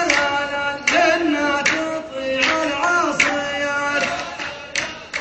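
A man singing a mawwal, holding long ornamented notes that bend and waver in pitch. Sharp percussive strikes join in, more often near the end.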